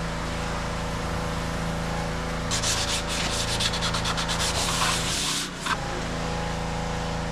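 Hand sanding of the International Harvester C123's cast-iron cylinder head gasket face with 220-grit sandpaper and brake cleaner. Quick back-and-forth scratchy strokes come in a run of about three seconds in the middle, over a steady low hum.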